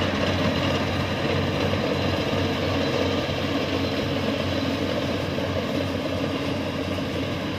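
Small rice combine harvester running steadily in the field, its engine and harvesting machinery giving a continuous, even mechanical drone.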